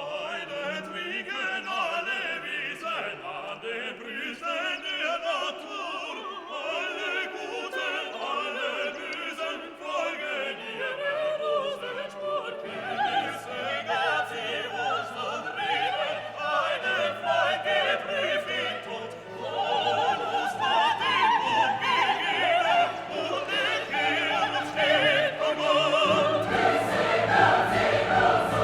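Background classical choral music: a choir singing with an orchestra, growing somewhat louder in the second half.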